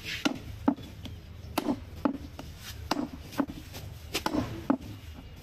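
A butcher's knife chopping goat leg meat on a wooden chopping block: a quick, irregular run of sharp knocks as the blade cuts through and strikes the wood.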